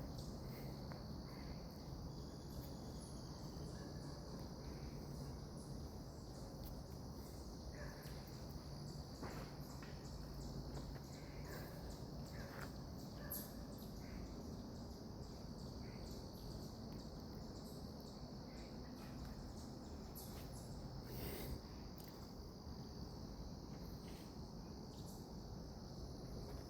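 Faint steady chorus of insects at dusk, one continuous high-pitched drone, with a few soft clicks and rustles here and there.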